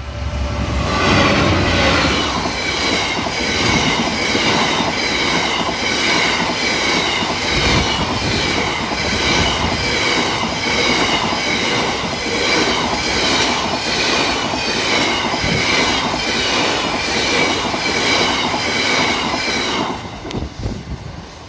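Class 66 diesel locomotive passing close by, its engine heard as a low hum at the start. It is followed by a long train of hopper wagons rumbling and clattering past in a steady rhythm of wheel beats. The sound drops away near the end as the last wagon clears.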